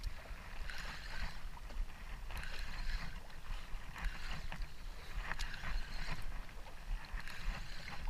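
Water sloshing against the hull and outrigger float of a small outrigger fishing boat, with wind rumbling on the microphone. Several patches of splashing hiss and a few faint clicks come through.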